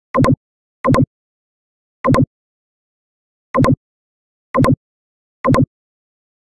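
Six computer mouse clicks at uneven intervals, each a quick double click-clack of press and release, with dead silence between: a screen recorder's mouse-click sound effect.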